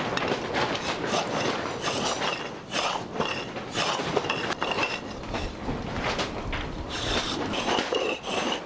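Steady rattling, scraping noise of a tool working the timber of a wooden boat's stem, with short high squeaks now and then.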